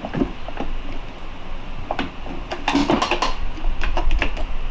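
Pry bars and hand tools clinking and knocking against a K-series transmission case as it is pried apart, with a quick run of sharp metal clanks from about two seconds in to just before the end.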